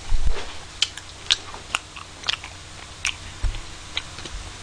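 Eating sounds of strawberry ice cream studded with chocolate chips: a low bump at the start, then sharp clicks about twice a second from chewing and the metal spoon working in the paper cup.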